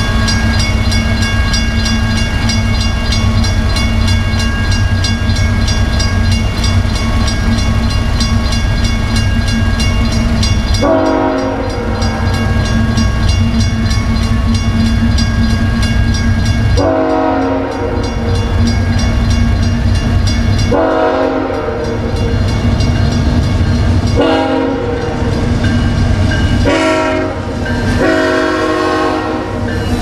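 A railroad crossing bell rings steadily over the low rumble of an approaching freight train. From about eleven seconds in, a BNSF diesel locomotive's horn sounds a series of long blasts as it nears the crossing.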